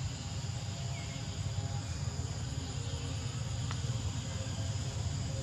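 Steady chorus of insects, an even high-pitched trill that does not change, over a low steady rumble.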